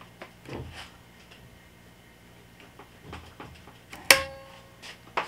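Light clicks and taps of handling, then a sharp pop with a brief ringing tail about four seconds in as 12-volt power is connected to an old car tape deck, and another click near the end. A faint steady hum runs underneath.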